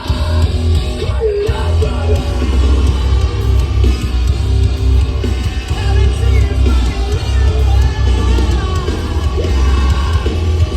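Live hard rock band playing loudly, with a singer yelling and singing over distorted guitars, drums and heavy bass, heard through a phone-style crowd recording.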